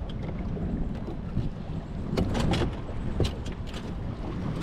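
Wind buffeting the microphone in a steady low rumble, with a few short sharp sounds about two seconds in and again around three and a half seconds in.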